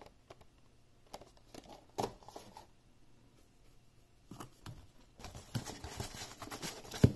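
Light scattered taps and clicks of boxed puzzles and packaging being handled and set down. From about five seconds in, a denser rustling and scraping of things being moved about in a cardboard shipping box, with one sharper knock near the end.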